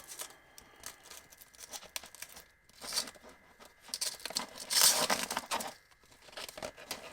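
Hands handling and crinkling plastic packaging while opening an accessory, with scattered small clicks, a short rustle about three seconds in and a louder, longer rustle near five seconds in.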